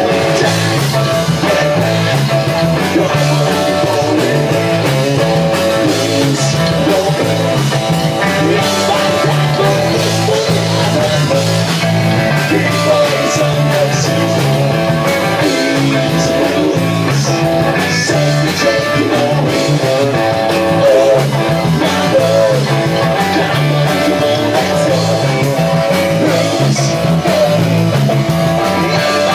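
Live rock band playing loud and steady: electric guitar, electric bass and drum kit, with a singer's voice over them.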